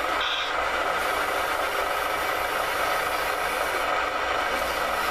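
Radio-controlled model construction machine's electric motor running with a steady whine, with a short higher note about a quarter second in.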